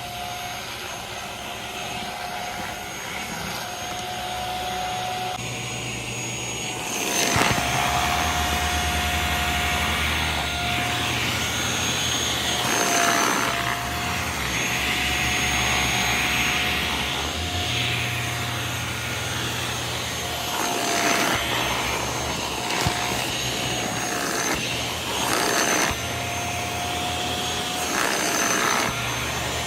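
Corded handheld mattress vacuum running steadily over a bed, its motor giving a constant whine and hum. It gets louder about seven seconds in, with a few brief knocks as the head is moved over the mattress.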